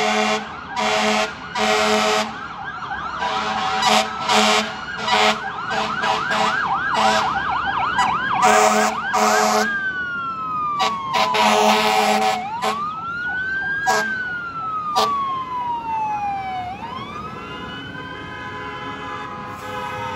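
Fire engine sirens and air horns. A fast yelping siren runs through the first half, with repeated short air horn blasts. After about ten seconds the siren switches to slow rising and falling wails, growing fainter toward the end.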